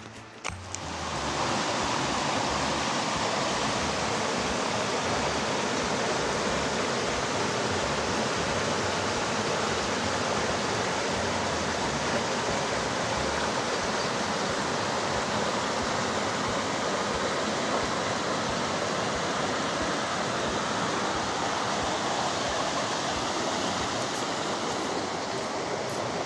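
River water rushing over rocks in small rapids, a steady, loud rush that comes in about a second in and holds even throughout.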